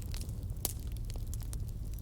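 Wood fire crackling: scattered sharp pops and snaps over a steady low rumble of the flames, with one louder pop a little over half a second in.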